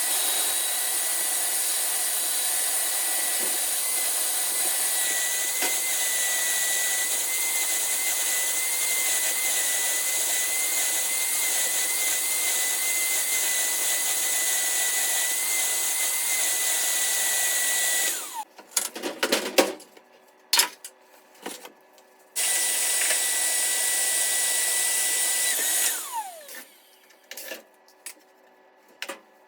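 Electric motor of a dryer-vent cleaning tool running steadily with a high whine. It switches off about two-thirds of the way in and winds down, starts again briefly, then winds down a second time near the end. Knocks and handling clatter fill the pauses.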